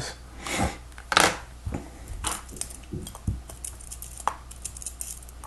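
Small plastic Lego pieces being handled: a few light clicks and rustles spaced about a second apart.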